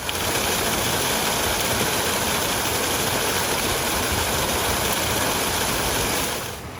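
Rushing water of a woodland brook, a loud steady hiss that cuts in suddenly and drops away abruptly near the end.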